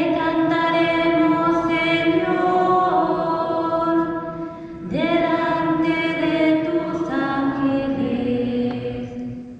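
A cantor's voice singing the responsorial psalm in church, in two long, slowly moving phrases with a short breath about halfway through.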